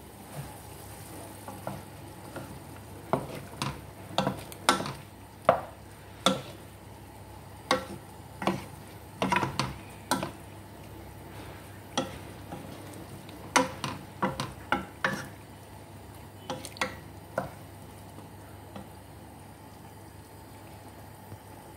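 Wooden spatula stirring pork adobo with potatoes and carrots in a nonstick pan, knocking and scraping against the pan in irregular strokes that stop about three-quarters of the way through, over a steady faint sizzle from the hot pan.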